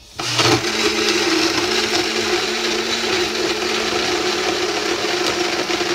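Oster personal blender running at full speed, blending a protein shake in its bottle. The motor starts about a quarter second in and runs as a steady, loud whir with a constant hum.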